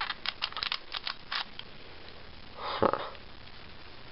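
Small plastic twisty puzzle (a Mini Blue Diamond) being handled and turned, a quick run of sharp plastic clicks in the first second and a half. A short whooshing sound, louder than the clicks, comes a little under three seconds in.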